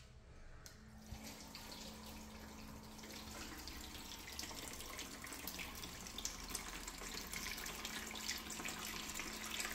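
Water rushing into a plastic toilet flush cistern through its float-operated inlet valve, starting about a second in and growing steadily louder as the tank fills. It comes in with force, a sign that the supply pipe's rust blockage has been cleared.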